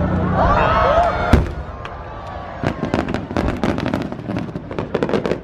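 Fireworks going off: people's voices at first, one sharp bang about a second in, then a quick run of crackling pops.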